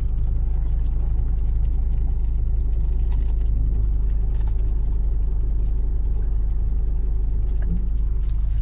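Steady low rumble of a car's cabin, the engine and road noise heard from inside the vehicle, with a few faint ticks.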